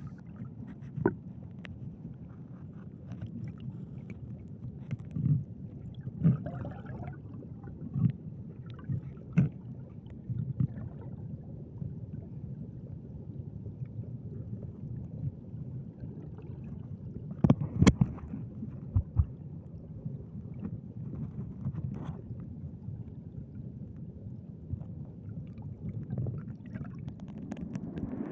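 Muffled, low rumble of river water heard under water, with scattered clicks and soft knocks, the loudest few about two-thirds of the way through.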